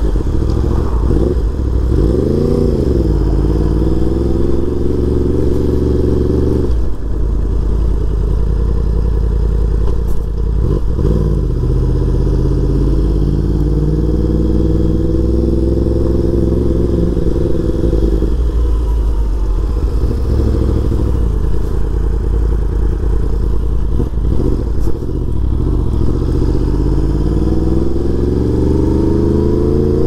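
Yamaha YZF-R1M's crossplane inline-four through an Akrapovic full exhaust system, heard from the rider's seat while riding in traffic. The revs rise and fall several times as the bike pulls away and slows, with a quick blip about two seconds in and a long climb near the end.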